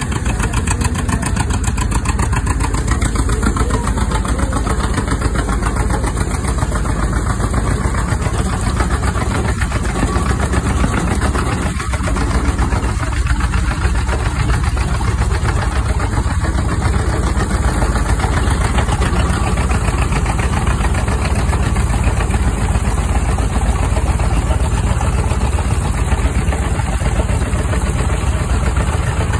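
Russell steam traction engine driving a threshing machine by a flat belt, threshing grain bundles: a steady mechanical clatter and rumble with a fast, even rhythm.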